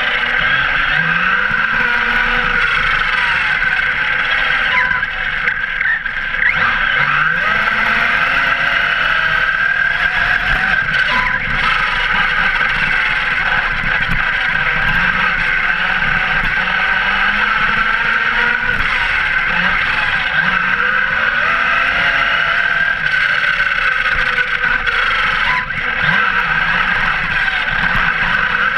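Brushless electric motor and drivetrain of an Arrma Kraton V3 RC truck on 6S power, heard from a camera mounted on the truck: a whine that rises and falls in pitch every couple of seconds as the throttle is worked, over a steady hiss of tyres on wet road.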